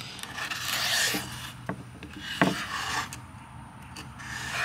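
Pencil point scratching across an MDF board as a homemade wooden-strip compass is swung round to draw a circle, in about three scraping strokes of a second or so each, with a few light knocks between them.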